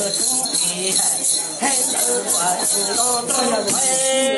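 Hmong shaman chanting in a sing-song voice over the steady rhythmic jingling of a hand-shaken bell rattle.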